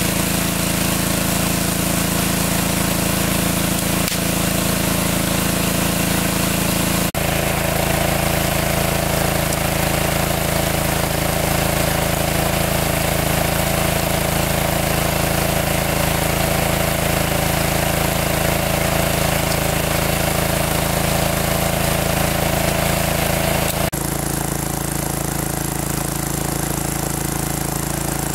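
A small engine running steadily. Its tone shifts abruptly twice, about seven seconds in and again near the end.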